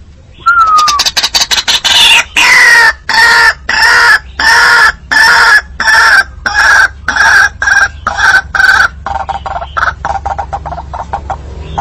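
White-breasted waterhen (ruak-ruak) lure call: a long series of loud, harsh calls repeated about every two-thirds of a second, giving way to quicker, softer notes near the end.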